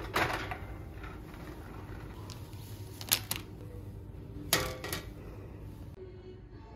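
A few sharp clicks and knocks of small objects being handled: one near the start, a quick pair about three seconds in, and one more with a short ring about a second later.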